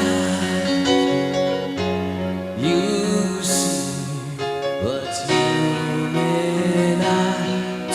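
Slow pop ballad intro: sustained keyboard chords under a melody line that slides up into each of its long held notes.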